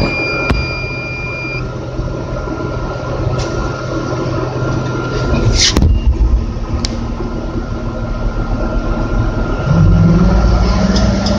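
Crane's engine running steadily inside the operator's cab, with a continuous high alarm beep that cuts off about a second and a half in; a solid beep like this is the crane's warning for wind over 30 mph. A few sharp clicks and one loud burst come about halfway, and the engine revs up near the end.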